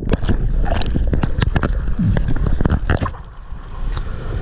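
Water splashing and churning around a waterproof action camera as a surfer paddles with both arms, a run of quick splashes over a low rumble of water buffeting the camera. The sound drops briefly about three seconds in, then picks up again.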